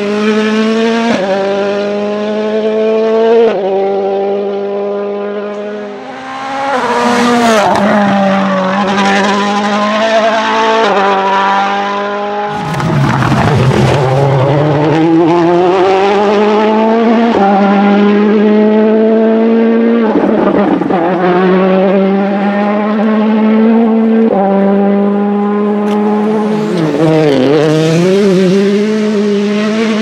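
2018 World Rally Cars' 1.6-litre turbocharged four-cylinder engines under hard acceleration on a tarmac stage. The pitch climbs in quick steps through the upshifts, and several times it drops through braking downshifts with throttle blips, as one car after another passes.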